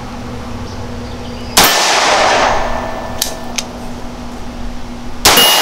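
Two pistol shots about three and a half seconds apart from a Bond Arms Stinger double-barrel derringer in 9mm, firing a +P defensive load. Each shot is a sharp crack followed by echo that fades over about a second.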